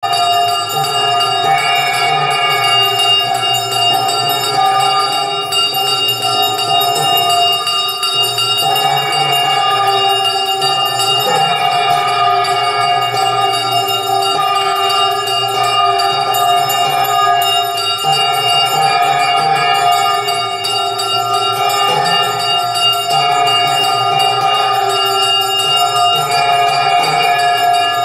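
Temple bell ringing continuously without a break, as the lamp is waved in aarti before the shrine.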